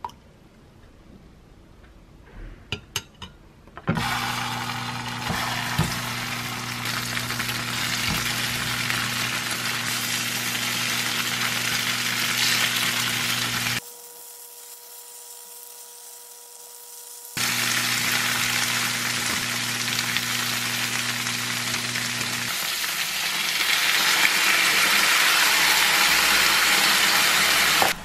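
A few light clinks of a spoon stirring sauce in a glass beaker, then, starting suddenly about four seconds in, tofu slabs sizzling in oil in a frying pan. The sizzling drops away for a few seconds in the middle, returns, and is loudest near the end as the tofu braises in its spicy sauce.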